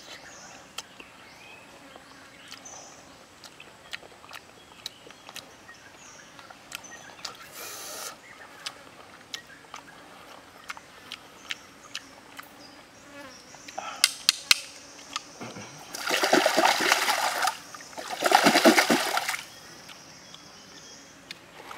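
Stream water splashed twice, each splash lasting a second or so, after a stretch of faint scattered clicks and a few sharp ticks.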